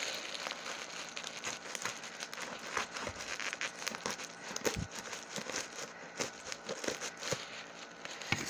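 Crinkling and rustling of white packing wrap as it is unwrapped by hand from a shipped item, with many irregular crackles and snaps.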